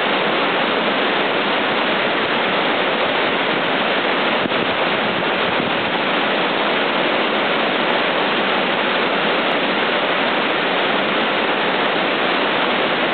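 River rapids: white water rushing steadily over and between rocks.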